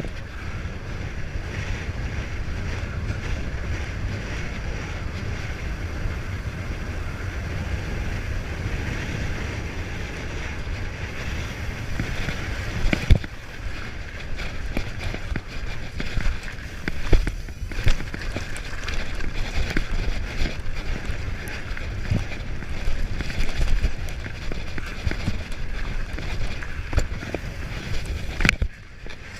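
Wind buffeting the microphone during a downhill mountain-bike run, over a steady rushing noise. From about halfway in, sharp knocks and rattles of the bike over rough ground come through.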